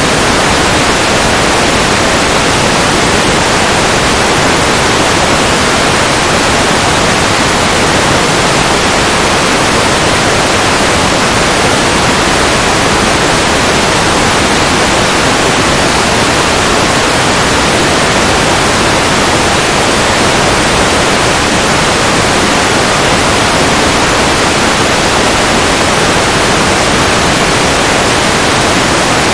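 Loud, steady hiss of static from an analog FPV video receiver getting no signal from the aircraft's video transmitter.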